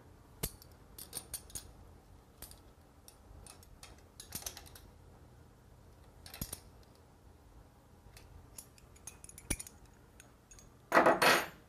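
Light clicks and metallic clinks from hands working on the metal pulleys, spacers and hardware of an electric motor's accessory drive kit, with a louder scrape of about half a second near the end.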